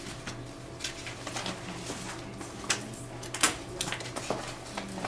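Scattered light clicks and rustles of papers and binders being handled, the sharpest two a little past halfway, over a steady low room hum.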